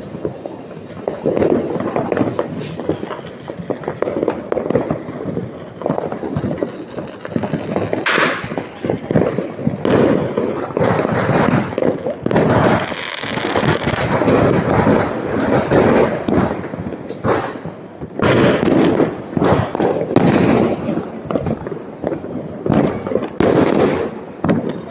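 Firecrackers and fireworks going off continuously, a dense run of sharp bangs and crackling with no pause.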